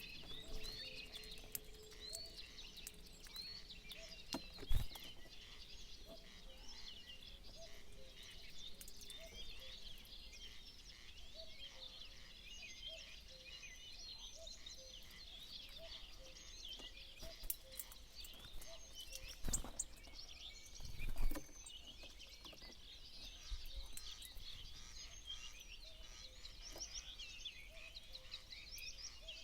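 Many small birds chirping and singing at once in a dense, continuous chorus of high, quick notes, broken by a few sharp thumps.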